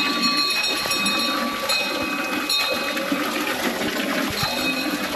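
Water running steadily, with a few clear high ringing tones over it near the start and again about two seconds in.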